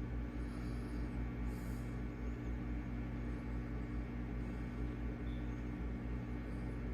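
Dishwasher drain pump running with a steady hum during the two-minute drain cycle used to clear an E1 F9 error code.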